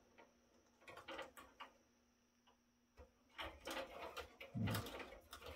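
Hands working cables and connectors into a server's hard drive cage: irregular light clicks and plastic and metal rattles in a few short clusters.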